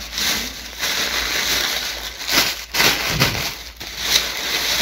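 Plastic bags and plastic-wrapped clothing packets rustling and crinkling unevenly as they are pushed and pressed into a cardboard box.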